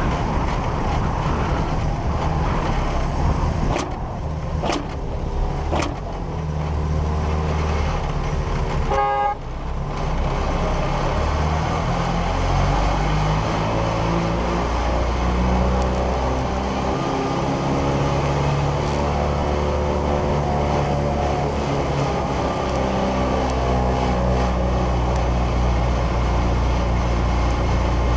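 BAC Mono single-seater's engine running as the car drives, heard through an on-board camera, its note rising and falling with the throttle. A few sharp clicks come about four to six seconds in, and a short higher-pitched tone sounds around nine seconds in.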